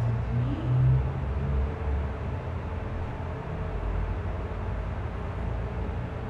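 Steady low rumbling background noise with no distinct events, slightly louder about a second in.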